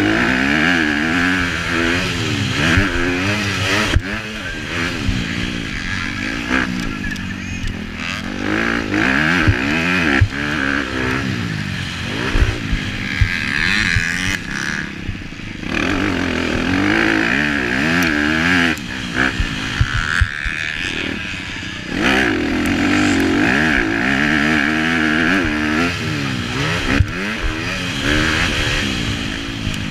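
Motocross bike engine revving up and down over and over as it is ridden hard around a dirt track, with a steady rushing noise and scattered short knocks throughout.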